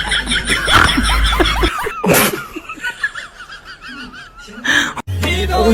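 People laughing and snickering, broken by a short noisy burst about two seconds in and another shortly before the end; music with a steady bass starts near the end.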